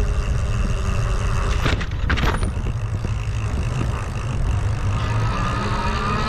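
RadRunner e-bike riding noise: a steady low rumble, with a brief cluster of rattles about two seconds in. Near the end a whine slowly rises in pitch.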